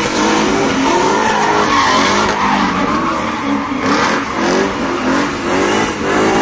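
Two drift cars sliding in tandem, engines revving up and down at high revs while their rear tyres screech and spin.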